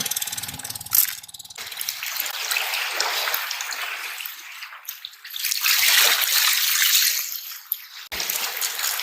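Seawater washing over and draining off shore rocks, a hissing rush that swells and ebbs, loudest about six to seven seconds in. A low rapid buzzing is heard in the first second or so.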